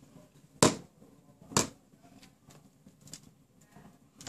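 Two sharp knocks on a desk about a second apart, then a few faint ticks, as a pocket calculator is handled and its keys pressed.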